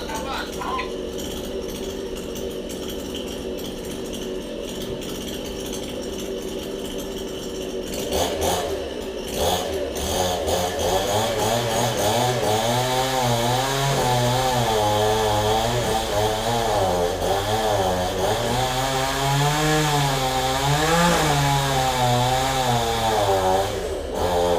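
Chainsaw running at low speed, then revving up about eight seconds in and running hard, its pitch rising and falling over and over as it works through the tree's wood.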